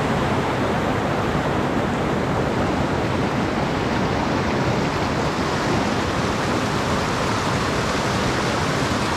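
Fast creek water rushing over rocks, a steady, even rush of water noise.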